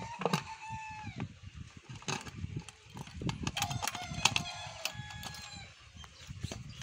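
Sharp metallic clicks and knocks from hand-fitting a brass plug into the cover of a stopped single-cylinder diesel engine, with an animal calling twice in the background, each a long held call, the first falling off at its end.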